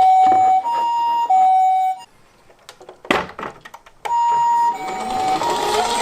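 Toy ambulance's electronic siren sounding a two-tone hi-lo wail, the two tones swapping about every two-thirds of a second. It cuts off about two seconds in, a sharp knock comes about a second later, and the siren starts again shortly after.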